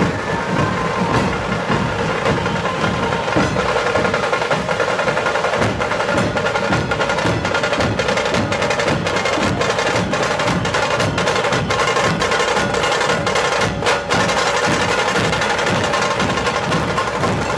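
Dhol-tasha troupe drumming: large barrel dhols beaten in a driving rhythm under fast, dense rolls of the stick-played tasha drums, loud and continuous.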